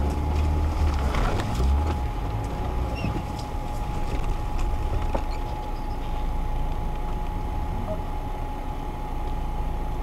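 Off-road vehicle engine running at a steady idle, with a faint steady whine over it. For the first couple of seconds the rumble is louder as another off-road 4x4 drives past and away.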